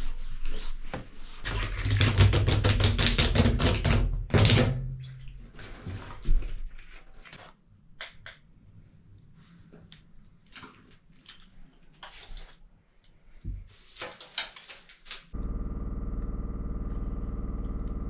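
A cloth wiping wet glass in quick, rapid strokes, then quieter scrubbing and a second short burst of wiping. Near the end a steady hum starts abruptly.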